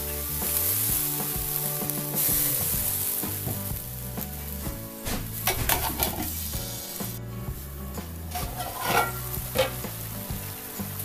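Water poured into a hot wok of frying cauliflower, potato and eggplant hisses and sizzles, loudest in the first few seconds. The sizzling goes on under a few sharp metal clinks from the lid and spatula.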